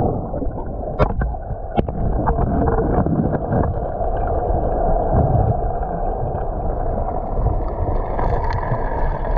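Janet's Foss waterfall's churning water heard through a GoPro housing sunk underwater after the camera was knocked into the waterfall: a muffled, low rumble and gurgle with the highs cut off. Two sharp knocks about one and two seconds in.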